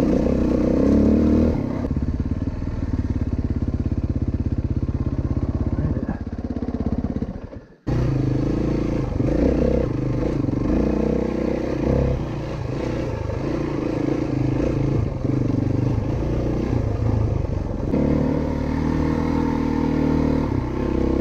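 Single-cylinder four-stroke dirt bike engine running under way, its pitch rising and falling with the throttle. The sound fades out about seven seconds in and cuts back in abruptly.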